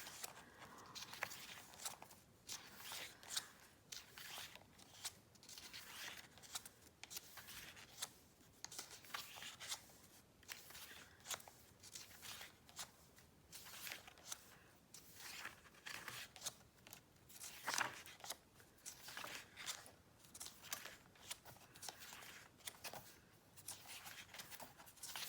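Pages of a K-pop album photobook being turned one after another: irregular, quick crisp paper flicks and rustles.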